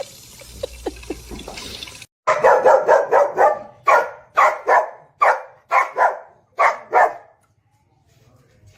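A dog barking repeatedly, about a dozen loud barks in quick succession over some five seconds, starting about two seconds in.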